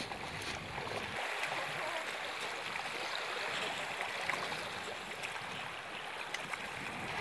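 Water rushing and splashing in shallow lake water, a steady hiss with small scattered splashes.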